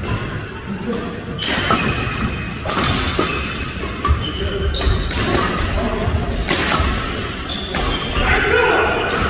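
Badminton doubles rally: sharp racket hits on the shuttlecock about once every second or so, with thudding footfalls on the wooden court floor, over background music.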